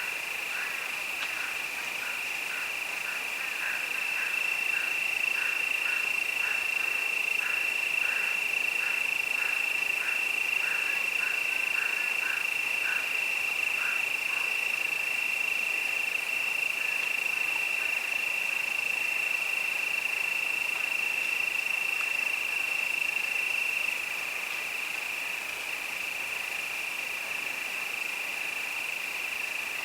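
Crickets chirring in a steady, high-pitched chorus that swells for most of the middle and eases back near the end. For roughly the first half a second, lower pulsed call repeats about twice a second alongside it.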